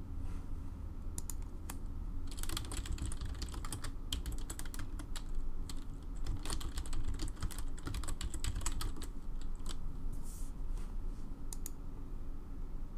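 Typing on a computer keyboard: keys clicking in several quick bursts with short pauses between, over a steady low hum.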